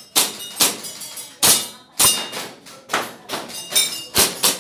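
Airsoft pistol firing a rapid, uneven string of about nine sharp shots, some followed by a brief ring.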